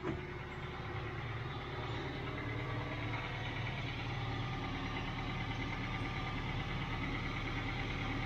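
Toyota MR2 Roadster's 1.8-litre four-cylinder engine idling steadily at the twin tailpipes, warming up after a cold start on a freezing morning.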